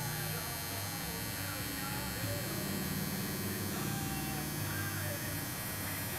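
Electric tattoo machine buzzing steadily as its needle works into the skin of a forearm, lining a tattoo.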